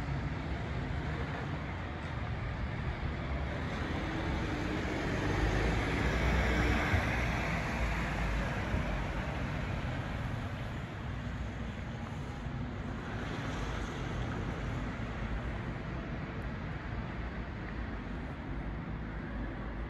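Town street traffic noise, a steady low rumble. A vehicle passes, swelling to a peak about seven seconds in and fading away again.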